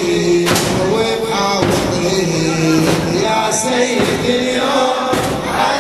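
A man chanting a Shia Ashura mourning lament (latmiya) in long, held notes, with drum and cymbal strikes keeping a beat about once a second.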